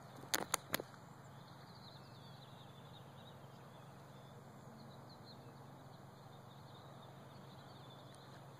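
Three quick sharp clicks in a row shortly after the start, then a faint steady outdoor background with faint bird chirps.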